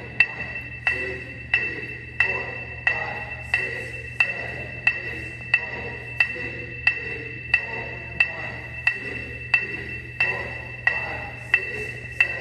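Electronic metronome clicking a steady beat, about one and a half clicks a second, each click ringing in a large gymnasium.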